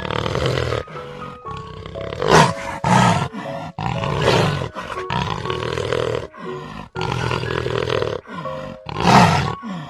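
Cheetah growling in a run of rough calls that start and stop, the loudest about two and a half, three and nine seconds in, over a light children's tune.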